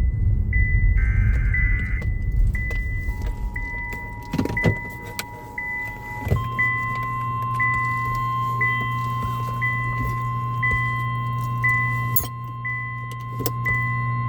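Emergency Alert System tones: the last warbling burst of a SAME data header, then the two-tone EAS attention signal from about 3 s in, switching about 6 s in to a single steady weather-radio alert tone. A short high beep repeats about once a second throughout, over a low hum.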